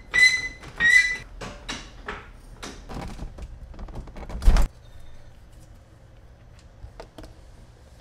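A car jack being pumped to lift the car: a quick run of squeaks and clunks, ending in a loud thunk about four and a half seconds in. After that it goes much quieter, with a couple of faint clicks near the end.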